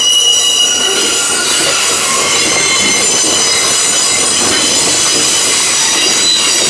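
Freight train of grain hopper cars rolling past close by, its wheels squealing in several high, steady tones over a continuous rumble as the cars round the curve.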